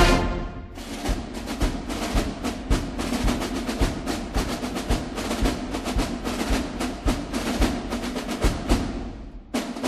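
Background music: a held orchestral chord dies away in the first second, then a fast, steady percussion pattern of sharp drum strokes takes over, dropping out briefly near the end.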